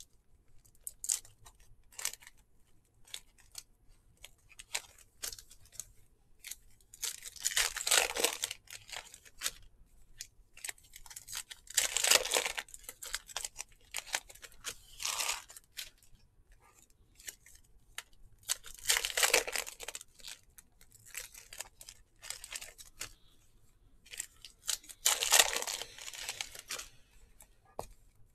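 Foil trading-card pack wrappers being torn open and crinkled by hand, in about five bursts a few seconds apart, with small clicks of card handling in between.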